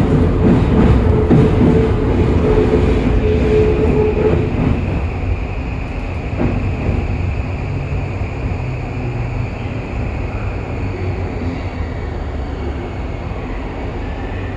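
Running noise inside a Toei 5500 series subway car with a Mitsubishi full-SiC VVVF inverter, the train slowing on its approach to the terminus: a dense low rumble that gradually fades, with a steady humming tone that drops out about four seconds in and a faint high whine that carries on.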